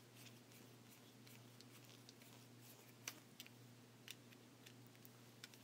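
Faint small clicks and scrapes of a screwdriver turning the terminal screw on an electrical plug, tightening a wire under it, with two sharper clicks about three and four seconds in, over a low steady hum.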